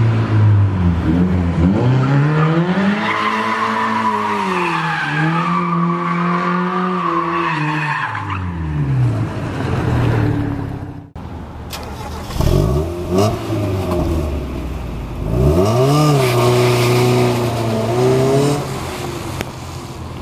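Mazda MX-5 roadster's four-cylinder engine revving and pulling away, its pitch rising and falling in long sweeps. After a sudden cut about eleven seconds in, another car's engine revs in quicker, sharp up-and-down sweeps.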